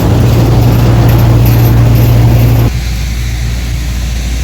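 Diesel engine of farm harvesting machinery running loud and steady with a deep hum, dropping abruptly to a quieter steady drone about two-thirds of the way through.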